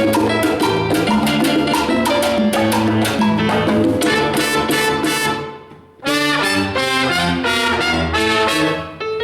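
Salsa band playing live with brass and percussion. The whole band cuts off together about five and a half seconds in, then comes back in sharply a moment later.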